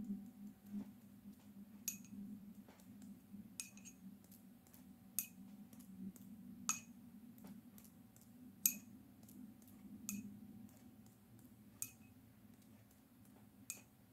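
Faint, sharp clinks of a paintbrush tapping against a glass jar of coffee as it is dipped and flicked to spatter drops onto paper. They come irregularly, about one every second or two, over a low steady hum.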